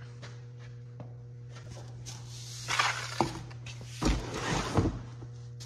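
Straw broom sweeping a concrete floor: a few swishing strokes of the bristles about three seconds in and again from about four seconds on, the later ones with low knocks.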